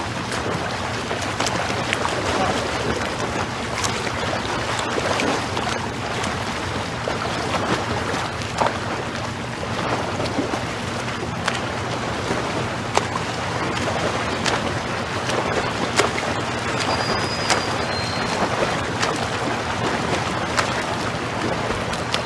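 Steady wind and water noise over a low, even hum, with scattered sharp knocks, typical of a boat moving on open water. The sound cuts off suddenly at the end.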